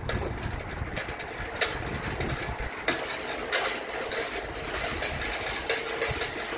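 Wind rumbling on the microphone and tyres rolling on asphalt as a bicycle rides along a paved path. About three seconds in the low wind rumble drops away as it enters a tunnel, and a steadier rolling hiss is left.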